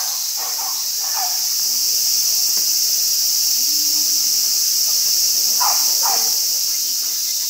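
A steady, high-pitched chorus of summer insects: a continuous, unbroken shrill drone, with faint brief voices in the background.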